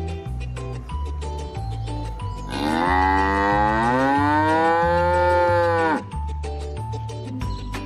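Cow mooing once, a long call of about three and a half seconds starting a little over two seconds in, rising in pitch and dropping off at the end. Background music with a repeating bass line plays throughout.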